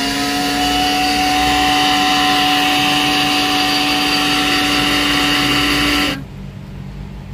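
Small countertop blender motor running at full speed, blending fruit into juice, with a steady whine at one pitch. It switches off abruptly about six seconds in.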